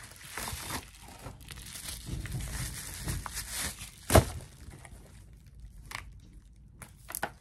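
Paper wrapping being torn and crumpled off a cardboard eyeshadow palette: dense crinkling for the first few seconds, then one sharp tap about four seconds in and a few light clicks near the end.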